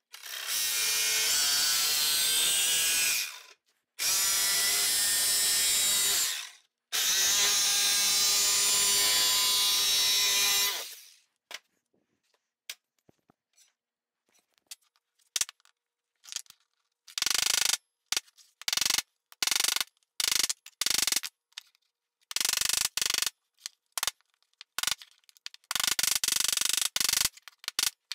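Corded jigsaw cutting thin sheet steel in three runs of about three seconds each, the motor whine and blade chatter starting and stopping sharply. After a quiet pause, a quick series of short loud bursts of noise fills the rest.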